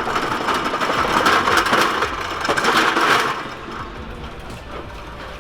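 Loud mechanical rattling made of many rapid clicks, which eases off about three seconds in to a quieter steady noise.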